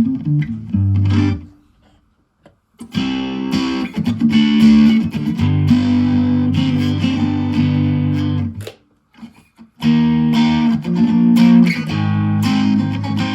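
Gear4Music LA Select Strat-type electric guitar played through a Zoom G1Four distortion patch into a FoxGear Tweed 55 amp and Vox BC108 cabinet: distorted chords ringing out, with brief stops about 2 seconds in and about 9 seconds in.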